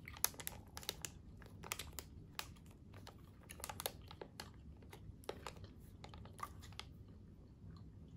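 A person chewing a hard Japanese snack candy close to the microphone: faint, irregular crunching clicks, several a second at first, thinning out near the end.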